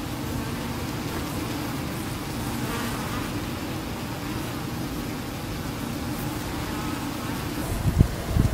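Honey bee buzzing, a steady low hum over a low rumble. A few low thumps come near the end.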